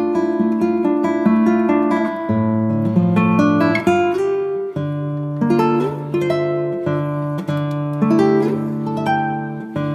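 Background music: an acoustic guitar playing plucked notes and strummed chords over a changing bass line.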